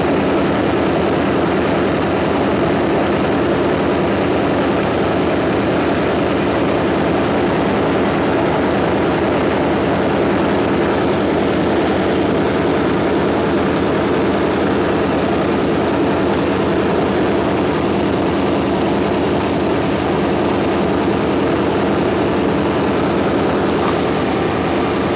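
Chevy 350 small-block V8 with throttle body injection running steadily.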